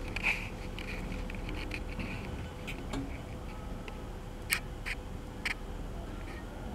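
Steady low background hum with a few scattered sharp ticks, the two strongest about four and a half and five and a half seconds in.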